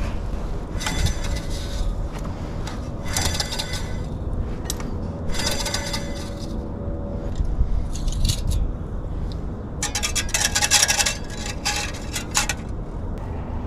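A bundle of stiff wires dragged across a corrugated metal pipe, giving a hissing metallic scrape in about six separate strokes.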